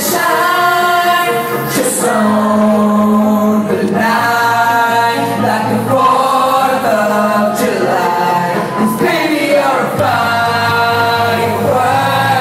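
Live pop performance: male vocals sung into handheld microphones over a loud amplified backing track with a sustained bass line.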